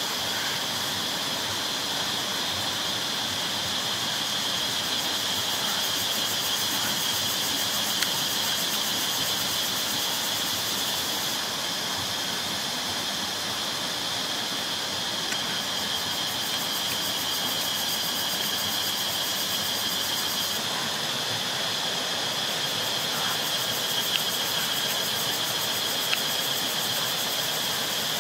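Steady high-pitched insect chorus from the forest, holding one pitch, with a few faint clicks now and then.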